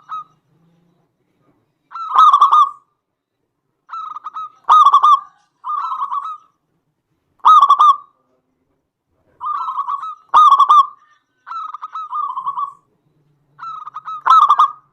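Zebra dove (perkutut) cooing: short bubbling phrases of repeated coos, some loud and some softer, given every second or two with brief silent pauses between them.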